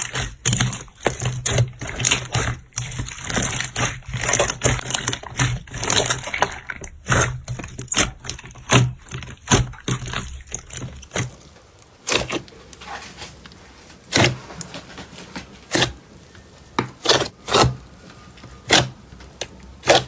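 Slime being squeezed and pressed by hand, giving a dense run of sticky clicks and pops over a low hum. About eleven seconds in it thins to sparser, separate pops.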